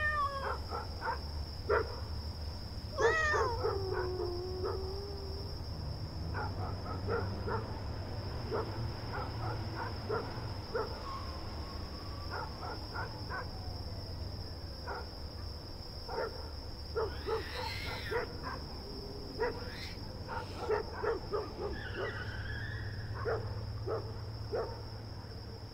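Night street ambience with cats meowing now and then, one long falling meow about three seconds in. Beneath them runs a low steady rumble and a thin, steady high whine, with scattered small clicks.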